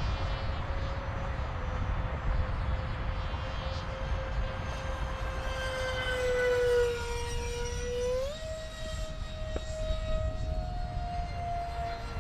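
Electric ducted fan of an RC SU-35 jet whining steadily, its pitch sagging slightly and then stepping up sharply about eight seconds in, over a low rumble.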